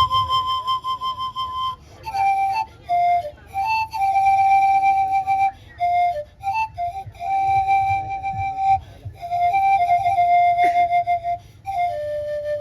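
Solo wod, the Isan bamboo circular panpipe, playing a melody in phrases of held notes separated by brief pauses, ending on a longer, lower note.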